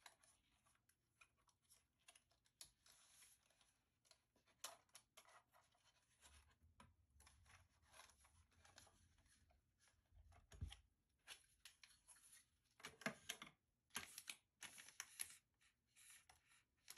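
Faint handling noises: clicks, rubs and plastic rustling as a drone's strapped storage cover is unfastened and lifted off and its bagged propellers are moved about. There is a dull thump about two-thirds in, and sharper clicks come in clusters near the end.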